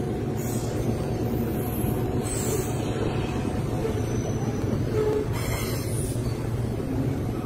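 Freight train's covered hopper wagons rolling past: a steady low rumble of steel wheels on the rails.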